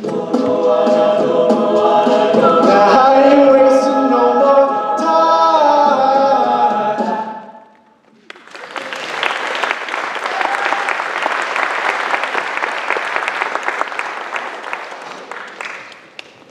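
A mixed-voice a cappella group singing the closing phrase of a song in harmony, the voices dying away about seven and a half seconds in. After a brief pause an audience applauds, and the clapping fades out near the end.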